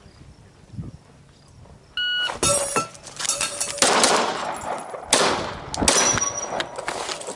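A shot-timer beep about two seconds in starts the run. It is followed by a string of rifle shots, each with a metallic clang as steel targets are hit and ring.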